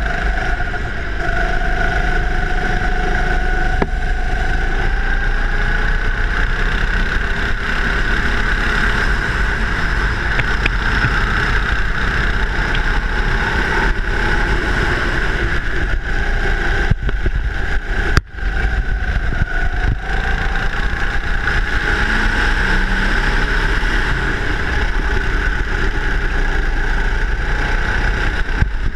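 Go-kart engine running hard on track, its pitch rising and falling as the kart accelerates out of corners and slows into them, heard from the driver's seat. About 18 seconds in there is a brief, sudden dip in the sound.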